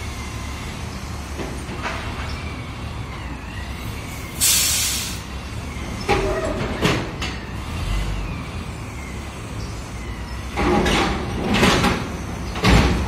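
Heavy diesel machinery running with a steady low rumble, a short loud burst of air hiss about four seconds in, then a series of sharp metal clanks and knocks from the lifting chains, slings and container on the trailer chassis.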